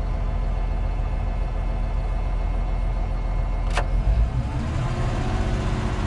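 Diesel engine of a heavy construction machine running steadily, heard from inside the operator's cab. A sharp click comes just before four seconds in, after which the engine's low drone grows heavier.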